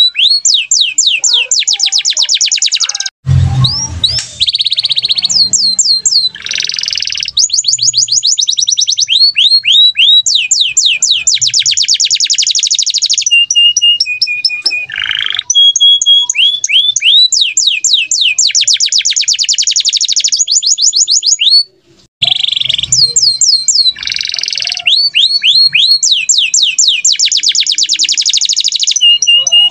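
Domestic canary singing vigorously: long, fast trills of rapidly repeated rising notes and rolls, phrase after phrase with short breaks between them.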